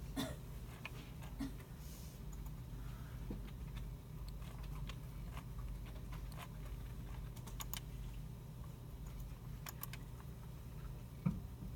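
Scattered computer keyboard keystrokes and mouse clicks, irregular with a few quick runs, over a steady low hum of room equipment. A single louder knock comes near the end.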